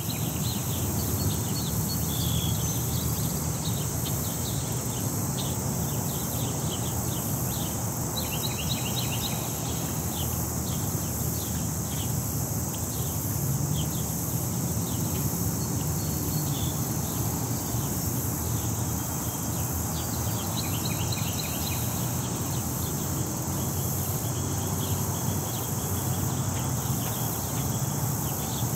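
City park ambience: a steady drone of insects over a low rumble of distant city traffic, with small birds chirping now and then, most busily about eight and twenty seconds in.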